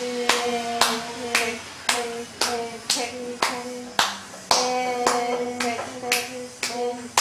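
Hand claps in a steady rhythm, about two a second, with a voice holding steady sung notes between the claps.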